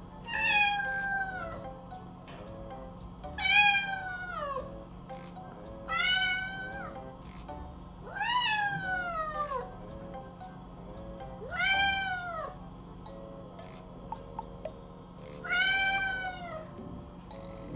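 Scottish fold cat meowing six times, each a long plaintive cry falling in pitch, every two to four seconds: a cat left home alone, calling for its absent owner.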